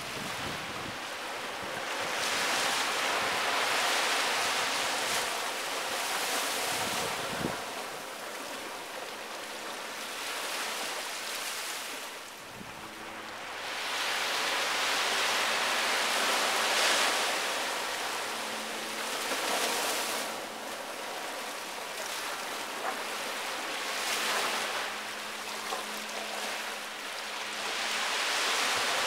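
Small waves washing up onto a sandy beach, the surf swelling and falling away every few seconds.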